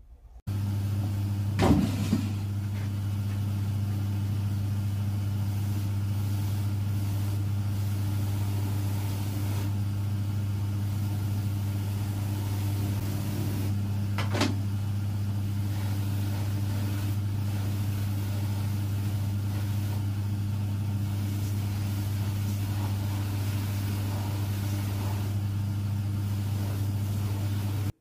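Shoe finishing machine running steadily with a low hum as a shoe is worked against its spinning wheels, with two short knocks about two seconds in and about halfway through.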